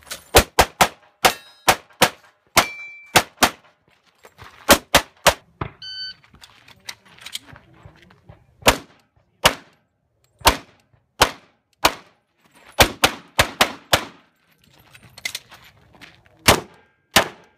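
Rapid pistol shots fired in quick pairs and strings, with short pauses between strings. A few hits on steel targets ring out briefly.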